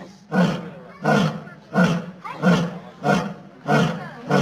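Young lion calling in a steady series of short roars, about seven evenly spaced calls, one every two-thirds of a second or so.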